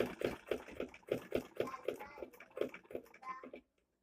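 Butterfly manual sewing machine stitching a buttonhole: an even clacking of the needle mechanism, about four stitches a second, that stops shortly before the end.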